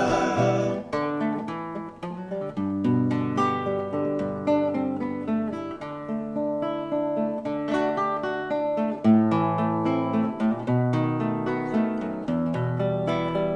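Acoustic guitar playing an instrumental interlude: plucked melody notes over strummed chords and a moving bass line, just after the last sung word ends about a second in.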